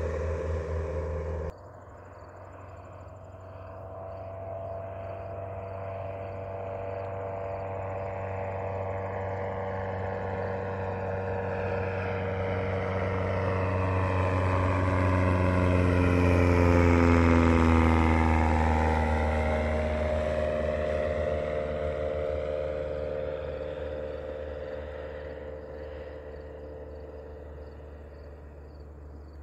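The Spezio homebuilt light plane's Lycoming O-290 four-cylinder engine and propeller fly past low. The drone grows louder to a peak about halfway, drops in pitch as the plane passes, then fades away. A louder stretch at the start cuts off abruptly about a second and a half in.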